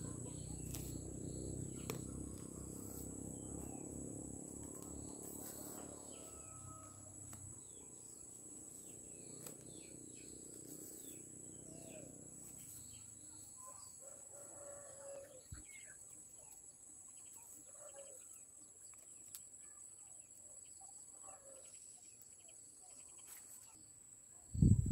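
Insects chirping steadily in a continuous high whine, with a low rumble over the first half and a few faint chirps and ticks. Two loud thumps come right at the end.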